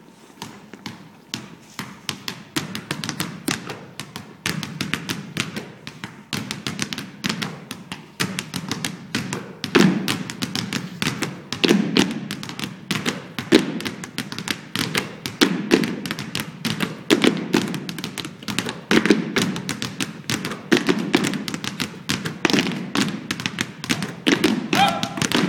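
Several basketballs dribbled together on a stage floor as a percussion routine, the bounces forming a rhythmic pattern of rapid thumps. It starts sparse and quiet and fills in within the first couple of seconds, with heavier accented bounces recurring from about ten seconds in.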